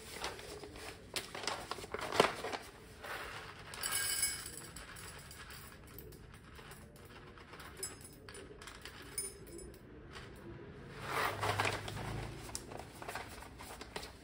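Handling clatter at an espresso bench: scattered clicks and knocks, a ringing metal clink about four seconds in, and a busier rattle later on as whole coffee beans are weighed into a stainless dosing cup. Nylon jacket rustle runs under it; the grinder is not running.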